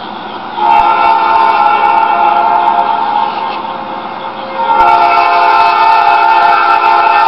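Diesel locomotive's multi-chime air horn sounding two long blasts at a grade crossing. The first begins about half a second in and fades after about three seconds; the second starts near five seconds and is still sounding at the end.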